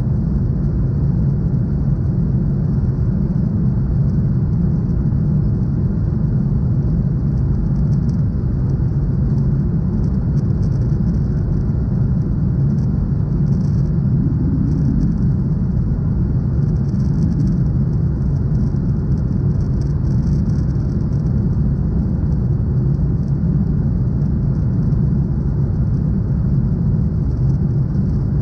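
Steady low roar inside a Boeing 737 cabin in flight: engine and airflow noise, unchanging throughout.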